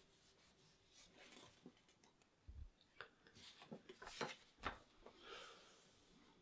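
Near silence: quiet room tone with a few faint taps and rustles in the middle and a soft breathy sound near the end.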